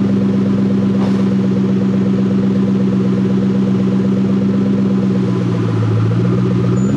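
Mustang Cobra's supercharged 4.6-litre V8 running at a steady speed, its note dropping lower about five and a half seconds in and rising again just before it cuts off.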